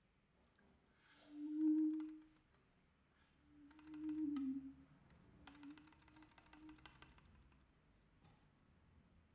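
Three soft, low, held notes played on a musical instrument, the second sliding down slightly at its end, with light clicks and rattles between and under them.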